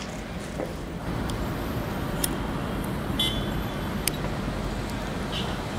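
Steady city traffic noise, a low rumble that gets louder about a second in, with a few faint short high tones near the middle and end.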